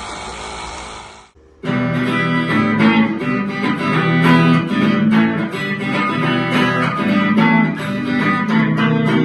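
Background music: a guitar-led pop song intro with strummed chords, starting after a brief gap about a second and a half in. Before it, a steady rushing noise fades out.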